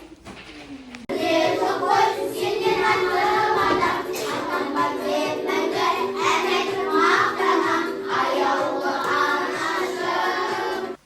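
A group of children singing together over music. It starts abruptly about a second in.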